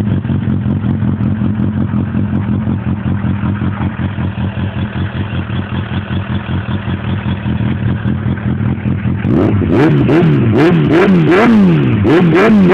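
Motorcycle engine idling steadily through an aftermarket stainless-steel silencer. From about nine seconds in it is blipped, a quick rev rising and falling about twice a second.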